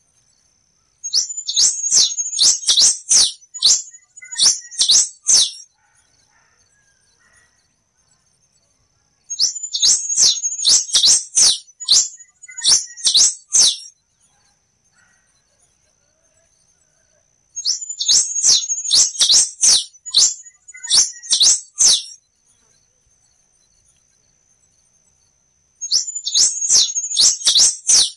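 Quem-te-vestiu (black-and-rufous warbling finch) singing. It repeats a song of rapid, sharp, high notes about four times, each song lasting four to five seconds, with gaps of a few seconds between them.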